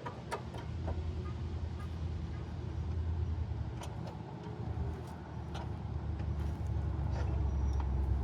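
A few sharp metal clicks and taps from hand tools working to line up a bolt hole on the suspension, over a steady low rumble.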